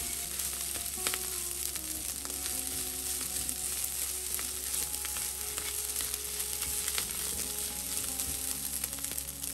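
Rice with shrimp and mixed seafood sizzling in a frying pan as it is stirred and turned with a spatula. The sizzle is a steady hiss, with scattered ticks and scrapes from the spatula against the pan.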